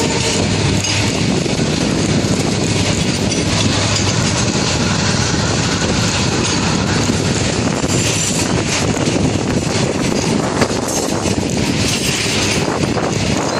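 Loaded coal wagons of a long freight train rolling past close by: a steady, loud rumble with the clatter of the wagons' wheels over the rails.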